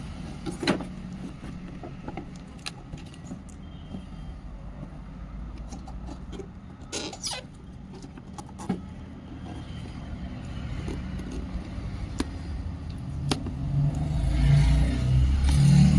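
Cardboard toy box being handled and turned over by hand: scattered taps, clicks and scuffs of card, over a low rumble that grows louder near the end.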